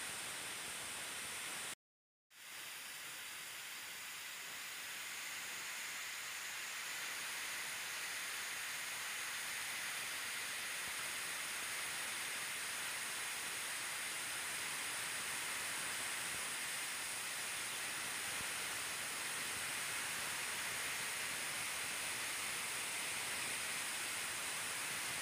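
Steady hiss that cuts out completely for half a second about two seconds in, then fades back up and holds steady.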